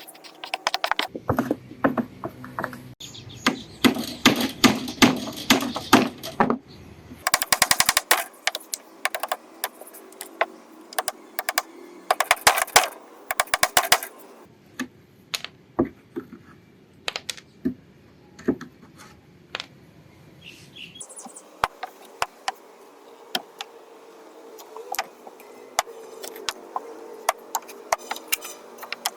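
Many sharp clicks and knocks, coming in dense rapid runs for the first half and sparser, irregular strikes after that.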